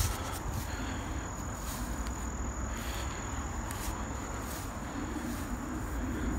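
Insects trilling outdoors: one steady, high-pitched note, over a low rumble.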